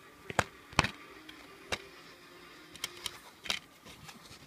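Plastic DVD case and disc being handled: a run of sharp plastic clicks and snaps, about six in all, loudest in the first second.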